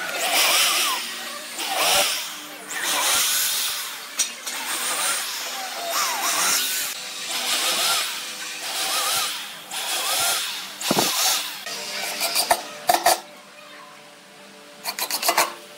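Corded electric drill boring pilot holes into pine boards in about eight short bursts, the motor spinning up and winding down each time. Near the end a cordless impact driver drives screws in with quick runs of rapid hammering clicks.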